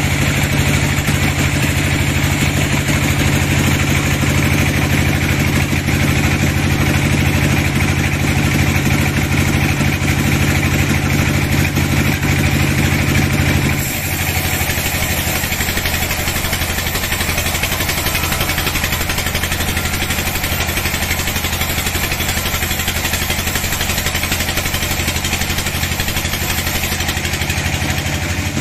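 Sawmill band saw running with a steady machine hum. The sound changes abruptly about halfway through, turning slightly quieter and lower.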